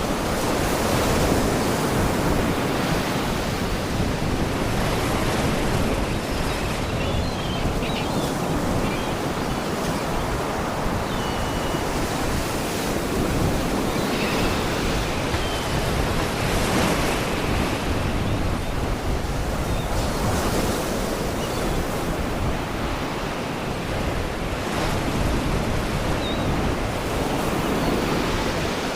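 Sea waves washing against rocks: a steady rush of surf that swells every few seconds. A few faint, brief high seagull cries come through.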